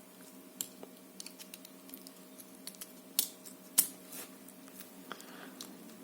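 A small metal tool clicking and scraping against the C-clip on the back of an ABUS D6 lock cylinder as the clip is pried off: scattered light ticks, with two sharper clicks a little past the middle.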